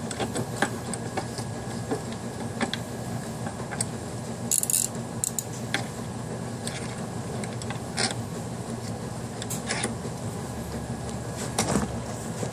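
Irregular metal clinks and knocks of a click-type torque wrench being handled and clamped into a bench vise, over a steady low hum.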